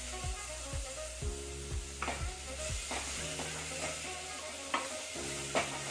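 Chopped tomatoes and spice masala sizzling in hot oil in a cooker while being stirred with a wooden spoon, which knocks and scrapes against the pot a few times.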